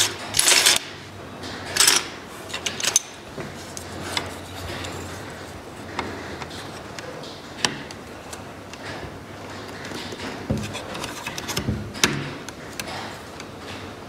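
Small wooden toy parts being handled and worked by hand: scattered clicks and knocks with rubbing, and a few short, louder scraping bursts in the first two seconds.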